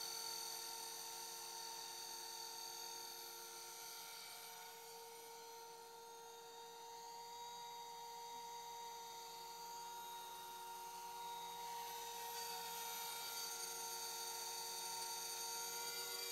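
T-Rex 450 electric RC helicopter in flight: a steady high whine from its motor and rotor. It grows fainter around the middle and louder again toward the end.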